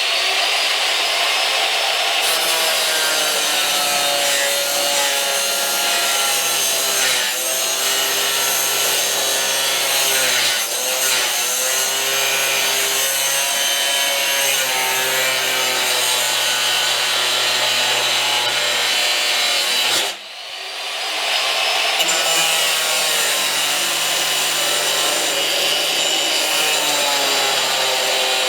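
A 4.5-inch angle grinder with a grinding wheel, running under load as it grinds through steel, its motor whine wavering in pitch as the wheel bites. About two-thirds of the way through it cuts out briefly, then spins back up and carries on grinding.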